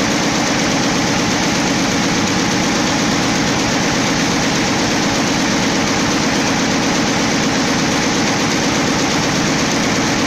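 Schiffli embroidery machine running steadily, its long row of needles stitching eyelet embroidery: a fast, even mechanical clatter over a constant hum.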